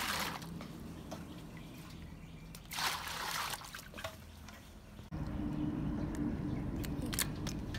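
Water poured from a scoop into a steel basin, splashing and sloshing, with a second pour about three seconds in. After about five seconds the sound changes abruptly to a steady low rumble with a few small clicks.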